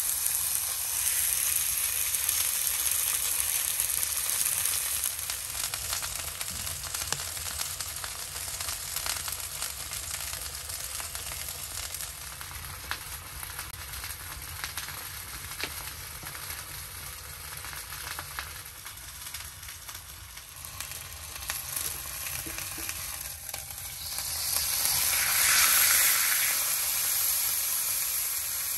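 Food sizzling and frying in a hot pan, a steady hiss with fine crackling pops. The sizzle swells louder for a few seconds near the end.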